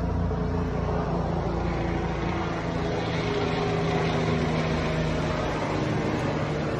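Helicopter flying, with a steady rotor beat under an engine hum. The deep rotor beat fades about two seconds in, leaving the engine tones, which slide slightly lower in pitch.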